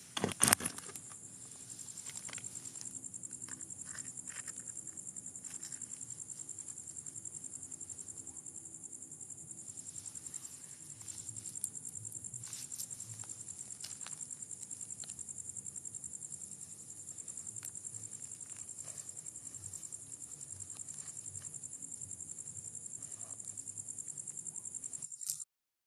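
Crickets trilling steadily at night, a high, fast-pulsing chorus. A sharp knock sounds about half a second in, and the sound cuts off abruptly near the end.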